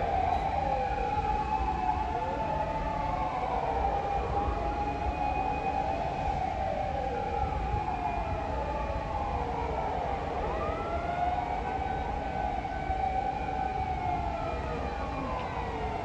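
Several fire engine sirens wailing at once, their rising and falling tones overlapping and sweeping out of step, over a low background rumble.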